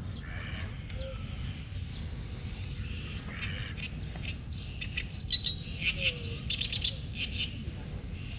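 Birds calling and chirping, with a quick run of short, sharp chirps about five seconds in, over a steady low rumble.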